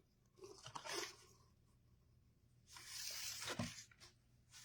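Faint rustling as craft materials are handled: a few short rustles about half a second in, then a longer, higher rustle about three seconds in.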